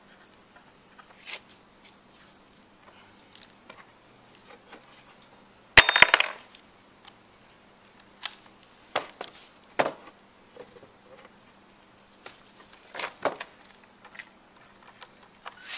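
Scattered knocks and clicks of pine lumber and a cordless drill being handled, with a sharp metallic clink and clatter about six seconds in. The drill is not running.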